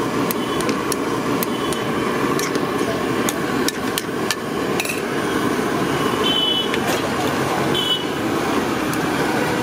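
Steel ladle clinking and scraping against a steel kadai while a dry mixture is stirred, in irregular sharp clinks. Two brief metallic rings come later as the steel lid goes onto the pan.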